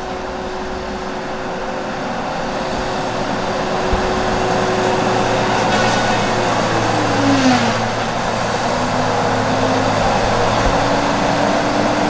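Tigercat rubber-tired feller buncher working, its diesel engine running steadily and slowly growing louder. About seven seconds in, a whine drops sharply in pitch and then climbs slowly back, with a short rushing noise just as it drops.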